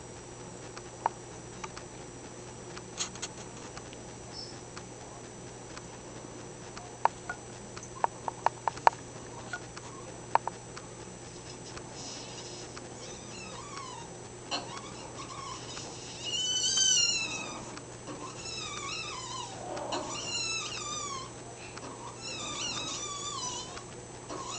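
Macaw making a run of repeated wavering, whining calls in the second half, each about a second long and a second or two apart, put forward as the sounds of a macaw wanting to breed. Earlier come a few sharp clicks or taps, the loudest in a quick cluster.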